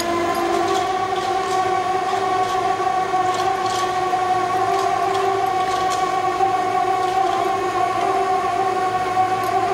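Steady mechanical whine at one held pitch with overtones from a steel plate-bending roll machine as it rolls a plate, with faint ticks on top.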